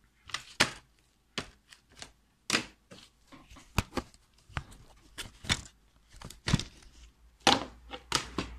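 Plastic DVD cases being handled: a string of irregular clicks, snaps and knocks as a case is shut and the next one is picked up.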